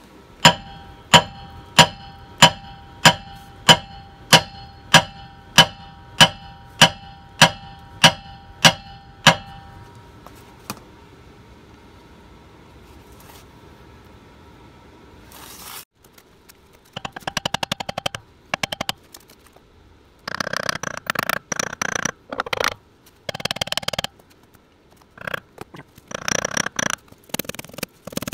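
About fifteen steady hammer blows on the steel axle hub of a big motorhome's rear drive wheel, each ringing metallically: beating on the axle flange to loosen the conical wedges that hold the rear axle shaft. After a pause, several short bursts of rapid clicking as a tool works on the hub's nuts.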